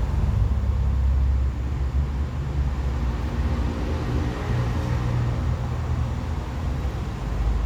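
Road traffic running over the bridge overhead: a steady low rumble of vehicles, with a passing engine's hum rising and fading.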